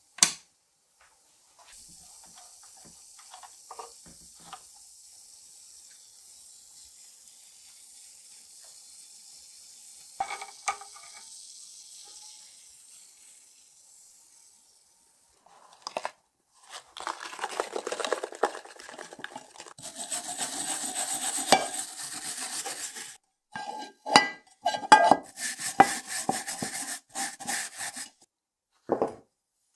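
A sharp click, then a faint steady fizzing hiss of electrolysis bubbles rising in the jar of solution around the rusty iron axe head. From about halfway, a louder, irregular scratching of a brush scrubbing the axe head under white powder in a glass dish.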